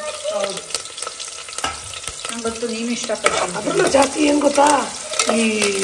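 Steel ladle stirring and scraping against the inside of an aluminium pressure cooker as sliced onions and chillies fry in oil, with a light sizzle and repeated short metal scrapes.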